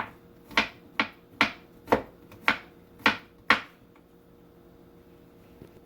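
A kitchen knife slicing through a green plantain and striking a cutting board, about eight sharp knocks roughly two a second, which stop a little over halfway through.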